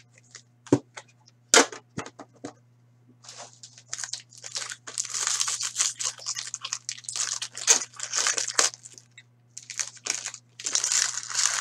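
An Upper Deck Premier hockey card tin being opened with a few sharp clicks, then the foil card pack inside torn open and crinkled, the foil rustling in long spells.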